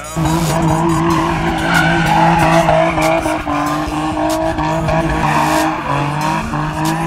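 Infiniti G35 coupe's V6 engine held at high revs while the car does donuts, its rear tyres spinning and skidding on dirt. The engine note dips briefly about six seconds in.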